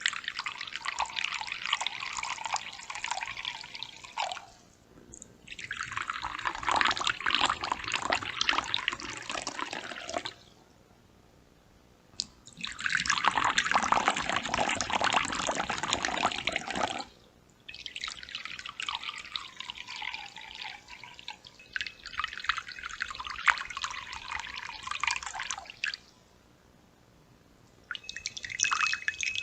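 Water poured into a bowl in a run of separate pours, each lasting a few seconds with brief pauses in between.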